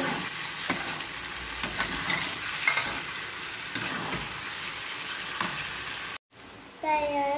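Brinjal pieces sizzling in oil in a steel kadai as they are stirred with a metal spatula, with short scrapes and clicks of the spatula against the pan. The sizzle cuts off suddenly about six seconds in.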